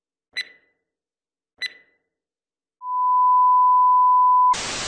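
Edited-in TV sign-off sound effect: two short electronic blips about a second apart, then a steady test-pattern tone of the kind played with colour bars, lasting about a second and a half. It cuts straight into a burst of TV static near the end.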